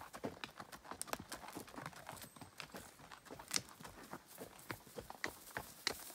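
A horse's hooves clopping: an uneven run of sharp knocks, several a second.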